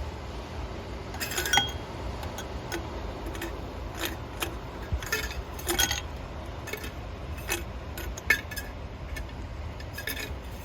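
Irregular light clinks and taps of small glass and metal items being handled, over a steady low rumble.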